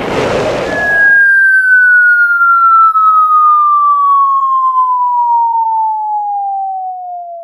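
Cartoon sound effect: a short rush of noise at the start, then one long whistle tone sliding slowly and steadily down in pitch, fading near the end.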